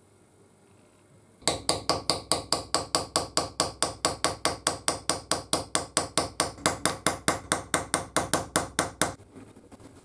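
Grooving chisel cutting a groove into an aluminium plate: a fast, even run of sharp metal-on-metal strokes, about five a second, starting about a second and a half in and stopping about a second before the end.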